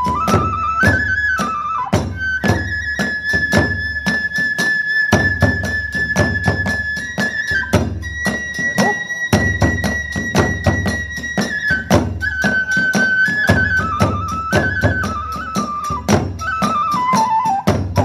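Kagura hayashi ensemble music. A bamboo transverse flute (fue) plays a melody of long held high notes that steps downward near the end. Under it, drums and hand cymbals (tesarigane) strike in a fast, steady beat, about three strikes a second.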